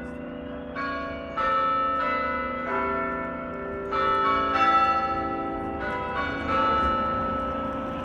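St Colman's Cathedral carillon bells playing: single bell notes of different pitches struck one after another in small groups, each ringing on and overlapping the next.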